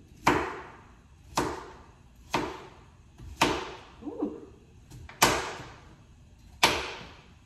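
A kitchen knife chopping through a raw sweet potato onto a cutting board: six heavy chops about a second apart, with two lighter knocks in between.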